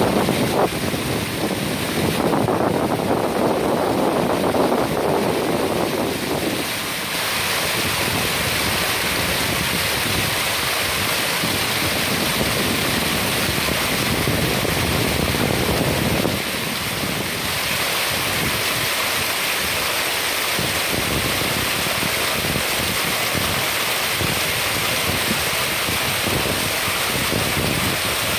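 Steady rush of wind and moving water, with wind buffeting the phone's microphone; the rush is heavier for a few seconds near the start and briefly again around the middle.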